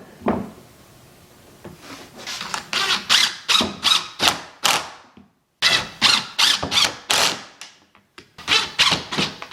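Hand sanding wood: quick back-and-forth strokes of sandpaper, about three a second, with a short break near the middle.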